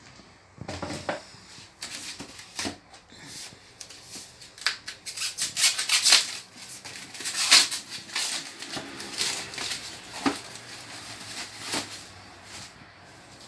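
Foam packaging wrap and its tape being cut and pulled open by hand, an irregular run of crinkling and rustling that is busiest through the middle.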